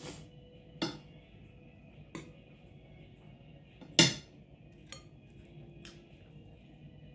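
Spoon clinking against a glass bowl while eating: about six short, sharp clinks, the loudest about four seconds in.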